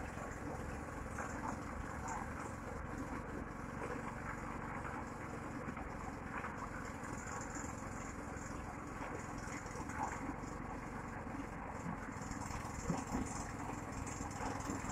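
A small engine running steadily in the background.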